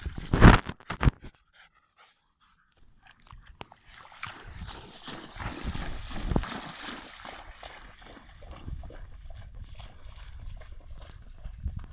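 Dog panting and snuffling, with a few loud knocks or rustles in the first second and a brief gap soon after.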